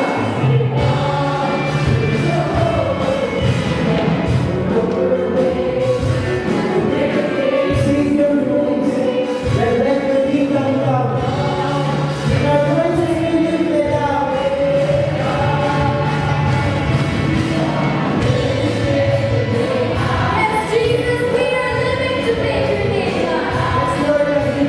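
Congregational worship song: a group singing in chorus over a band with a steady bass and beat.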